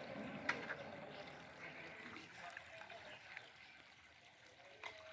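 Faint trickling of water around tube well pipes being taken apart, with two sharp knocks, one about half a second in and one near the end.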